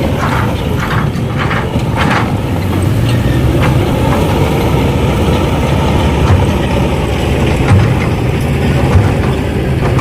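Radio-controlled excavator and dump truck working, with a steady low engine-like hum. A run of clicks about every half second over the first couple of seconds.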